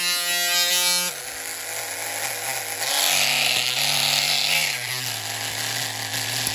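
Small electric power tool running: the motor spins freely with a steady whine, then about a second in its pitch drops and wavers as it bites into the work under load, with a grinding hiss.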